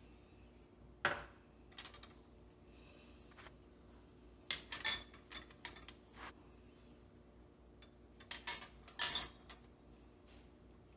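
Light clinks and taps of teaspoons and small dishes against a pot while marinade ingredients are added to sliced pork. There are scattered single clicks, then two quick clusters of clinks about midway and near the end.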